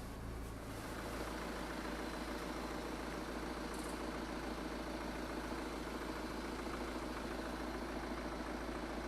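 BMW 520d's four-cylinder turbodiesel idling steadily, with the light diesel clatter typical of a diesel.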